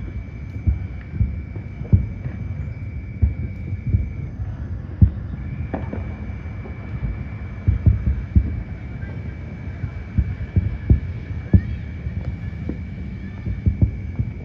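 Distant New Year fireworks booming: many irregular low thuds, several a second, with now and then a sharper crack. A faint steady high tone runs underneath, breaking off for about a second a little after four seconds in.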